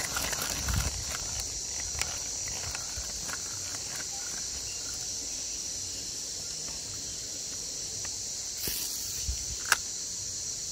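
Insects buzzing in a steady, high, unbroken drone. A few light clicks come in the first few seconds and one sharp click near the end.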